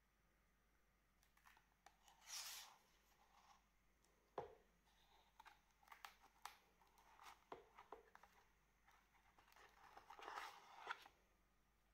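Faint rustling and sliding of the thick cardboard pages of a hardcover DigiBook disc case under gloved hands, with two longer swishes and one soft knock about four seconds in.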